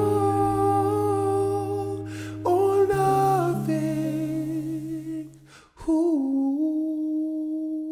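Closing music of long held, hummed vocal notes in chords, shifting pitch a few times, with a short break and then a wavering held note from about six seconds in.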